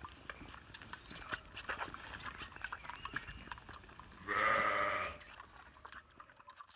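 A lamb sucks at a feeding bottle, with many small clicking and smacking sounds. About four seconds in, a sheep gives one loud bleat lasting just under a second.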